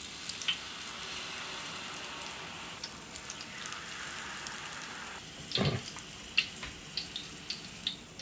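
Battered vegetable tempura deep-frying in hot oil: a steady sizzle with sharp crackles and pops. About five and a half seconds in comes a brief louder knock.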